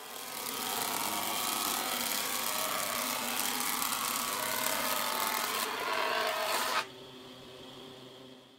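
Jointer (surface planer) cutterhead on a combination woodworking machine planing a wooden board, a loud, steady cutting noise. Nearly seven seconds in the cut stops abruptly and the machine keeps running unloaded with a lower, steady hum.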